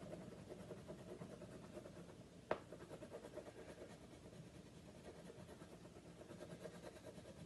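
Crayon being rubbed back and forth on paper, faint and fast, as a shape is filled in with colour. A single sharp click about two and a half seconds in is the loudest sound.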